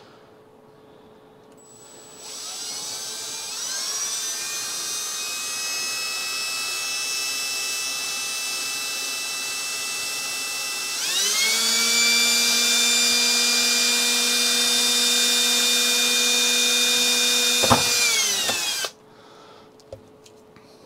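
Milwaukee cordless drill with a small bit drilling a first pilot hole through the modem's panel. The motor whine rises to a steady speed about two seconds in, steps up to a higher, louder speed about halfway through, and gives a sharp click near the end before winding down and stopping.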